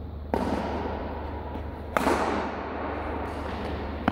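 Badminton rackets striking the shuttlecock in a rally: three sudden hits spread about two seconds apart, each ringing on in a long echo from the sports hall.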